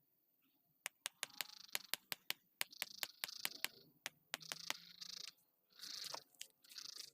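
Concrete paving blocks being set into place: a quick, irregular run of sharp clacks as block knocks against block, with scraping hiss between them as they slide on the bedding. The clacking starts about a second in.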